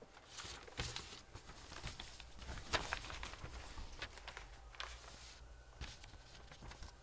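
Paper envelopes and a plastic bag being handled: irregular crinkles, rustles and light taps. They come most densely in the first five seconds over a low steady hum.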